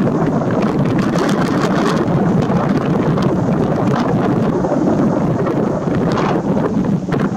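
Aerial fireworks shells launching and bursting in rapid succession, a continuous barrage of booms with many sharp cracks layered over a rumbling wash.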